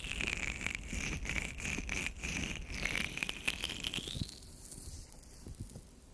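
Oiled hands rubbing and squeezing the ears of an ear microphone, a slick rubbing with many small crackles. It eases off and grows quieter after about four seconds.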